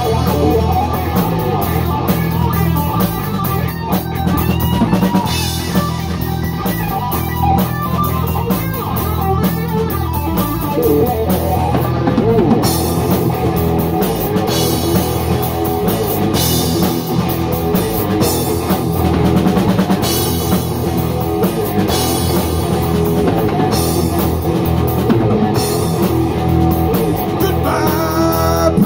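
Live rock band playing an instrumental passage on electric guitar, electric bass and drum kit, with a steady drum beat. Just before the end a lead voice comes in.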